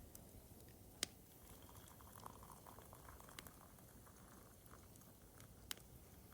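Near silence, with a faint crackling through the middle and two sharp faint clicks, one about a second in and one near the end.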